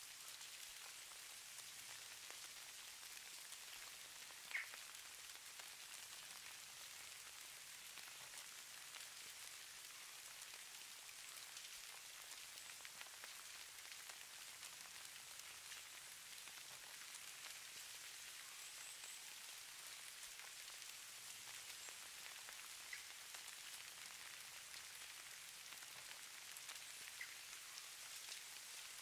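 Faint, steady pattering hiss of falling snow, made of many fine ticks, with one louder click about four and a half seconds in.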